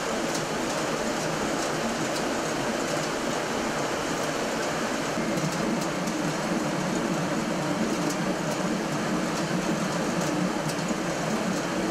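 Water-powered millstones turning and grinding grain into flour: a steady rumbling run with faint scattered ticks.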